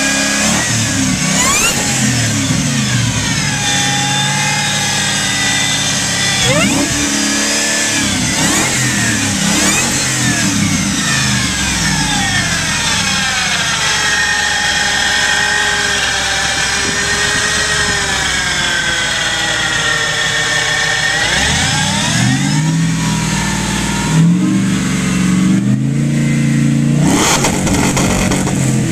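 Supercharged Ford SVT Lightning V8 being revved again and again, its pitch climbing and falling. A high whine rises and falls with the revs. In the middle the revs are held up for several seconds before dropping back and climbing again near the end.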